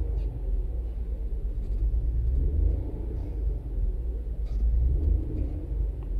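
Toyota Avalon V6 engine idling with the air conditioning on, a steady low rumble that wavers in level. The engine has a random misfire caused by a faulty fuel injector, and its vibration is strong under the aircon load.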